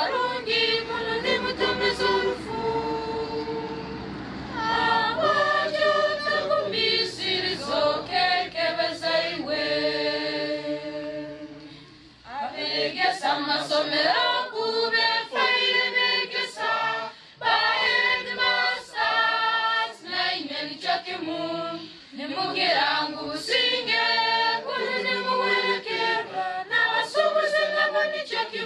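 A group of voices singing together unaccompanied in chorus, phrase after phrase, with a brief break about twelve seconds in.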